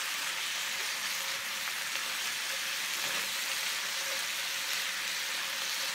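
Chopped cabbage and ground meat sizzling in a frying pan over high heat, a steady hiss, as the heap is turned over with long wooden cooking chopsticks.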